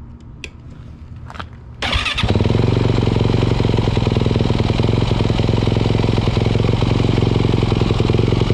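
2018 Yamaha YZ450F's single-cylinder four-stroke dirt-bike engine, freshly refilled with oil, starting about two seconds in and then running steadily. A few light clicks come before it fires.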